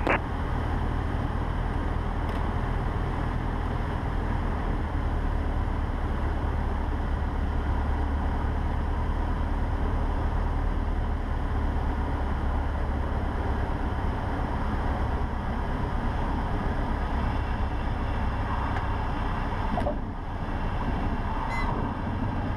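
Cessna 150's four-cylinder Continental O-200 engine and propeller at low landing power, with airflow noise, heard inside the cabin as the plane comes down to the runway and rolls out. Brief wavering tones sound twice near the end.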